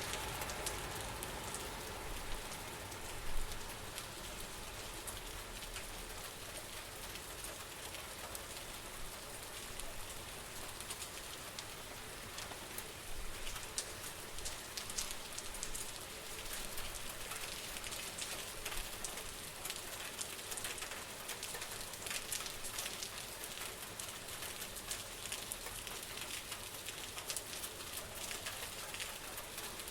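Steady rain falling on hard surfaces, with many separate drop ticks through the hiss and one louder knock about three seconds in.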